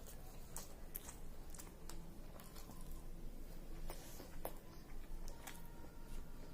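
A person chewing a mouthful of chicken biryani, with irregular wet smacks and short clicks.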